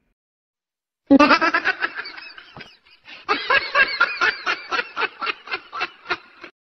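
A person laughing, a quick run of short "ha-ha" pulses starting about a second in, breaking off briefly, then a second, longer run.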